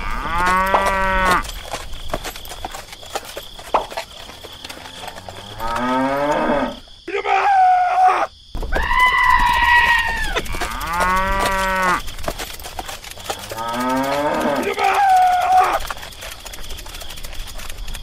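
Cows mooing, about six separate calls a few seconds apart, some rising in pitch as they go.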